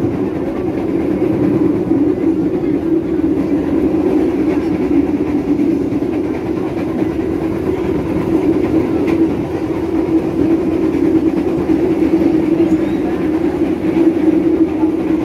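Steady running noise of a moving passenger train heard from inside a carriage: a constant rumble with an even, low drone.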